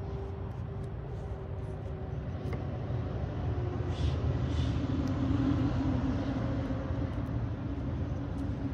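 Low rumble of an engine running with a steady hum, growing louder from about three seconds in.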